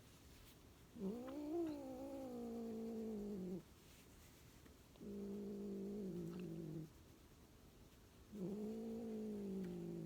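Chinchilla Persian cat giving three long, low, drawn-out yowls, each a couple of seconds long, the pitch sinking at the end of each.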